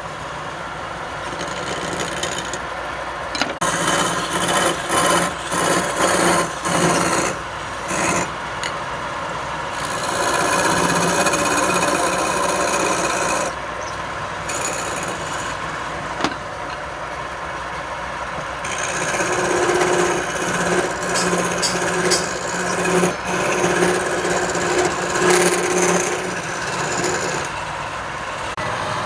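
Wood lathe running with a steady motor hum, while a tool rasps against the spinning wood in repeated passes of a few seconds each.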